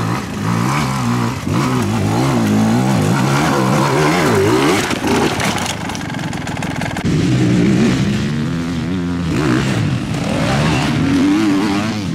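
Enduro motorcycle engine revving, its pitch rising and falling over and over as the throttle is worked.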